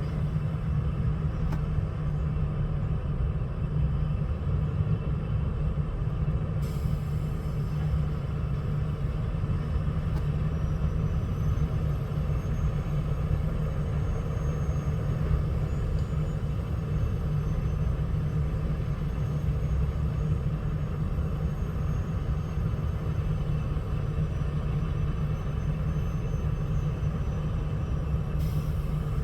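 Heavy diesel logging machinery running steadily, a deep even engine rumble with no breaks or separate impacts.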